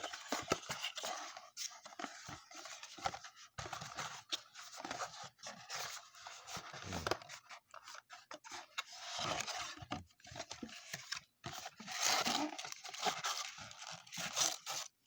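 Trading card blaster boxes being opened by hand: irregular scratching, crinkling and tearing of plastic wrap and cardboard packaging, with many small sharp clicks.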